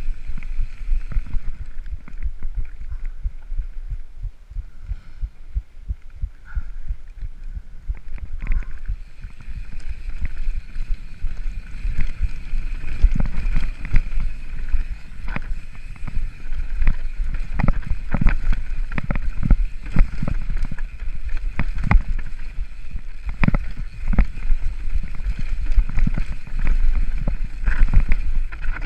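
Mountain bike ridden fast down a rough dirt forest trail, heard from a camera on the rider: wind rumble on the microphone with frequent knocks and rattles as the bike hits bumps. The knocks come thicker and louder from about eight seconds in.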